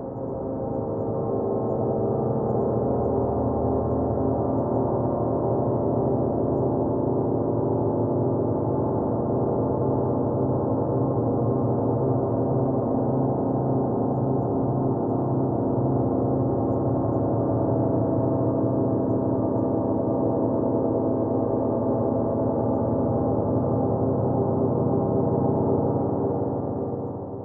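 Dark, droning background score: many held low tones sounding together with a gong-like ring and little treble. It stays at a steady level and fades out at the very end.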